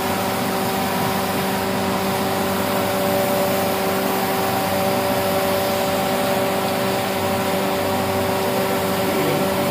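Steady hiss of compressed air from a spray gun spraying hydrochrome solution, over a constant machine hum of a few steady tones.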